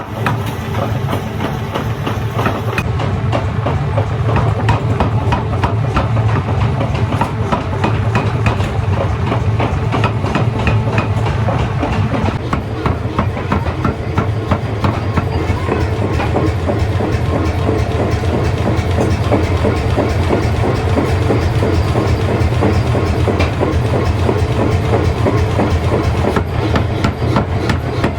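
Factory machinery running with a continuous rapid metallic clatter over a steady low motor hum.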